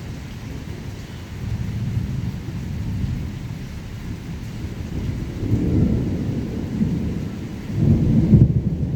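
Thunder rumbling over steady rain, swelling several times and loudest near the end.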